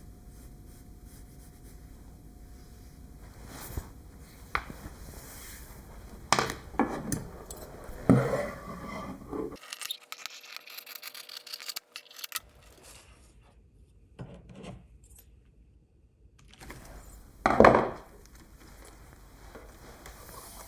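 Workbench handling sounds while a seat-cover pattern is made: material rubbed, slid and scraped across a surface, with scattered sharp knocks. The loudest rustle-and-scrape bursts come about eight seconds in and again near the end.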